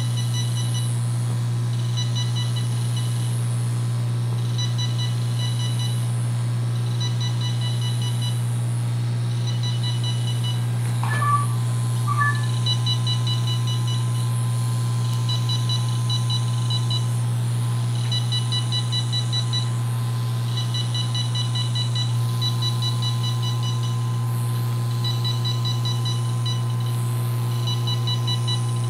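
Nordlys FRAX 1940 fractional laser firing on the skin: rapid trains of high beeps in bursts of a second or two with short pauses, as the handpiece is stepped across the hand, over a steady low hum from the laser system. About twelve seconds in, a faint steady tone joins.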